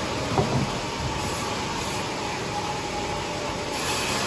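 Sawmill machinery running steadily in the shed, an even rushing drone that does not change.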